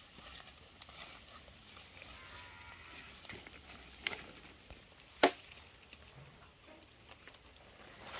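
Two sharp clicks, a little over a second apart, over a faint, quiet outdoor background.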